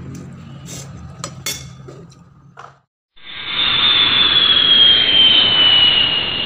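Spoon and fork clicking against a plate over a low steady hum. After a short silence about three seconds in comes a loud jet-like whoosh sound effect with a whistle that slowly falls in pitch: the logo outro sting.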